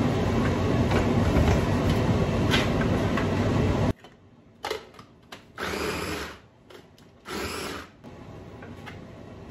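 Small electric food chopper run in three short pulses, chopping green papaya chunks. It follows a loud, steady noise that cuts off suddenly about four seconds in.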